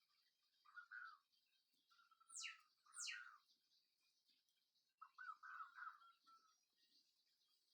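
Faint short animal calls, several times, with two quick falling whistles about two and a half to three seconds in, over a faint steady high hiss.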